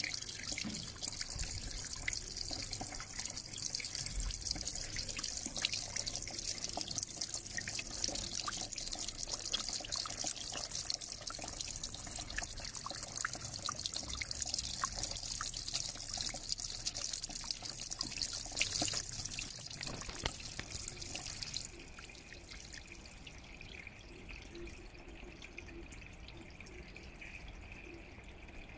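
Steady trickling, splashing water with light drips. About three-quarters of the way through it drops suddenly to a much fainter hiss.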